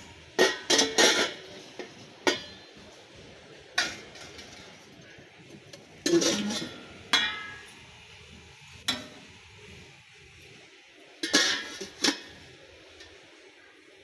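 Stainless steel tiffin carrier being handled, its tiers and lid clinking and clanking against each other in short sharp knocks with a metallic ring. A cluster of knocks comes about half a second in, single knocks follow every second or two, and another cluster comes about eleven seconds in.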